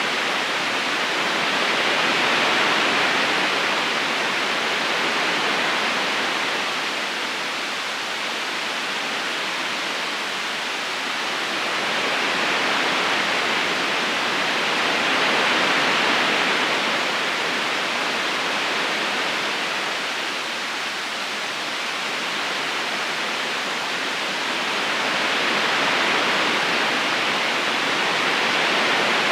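River current flowing over stones, a continuous rushing of water that slowly swells and eases every several seconds.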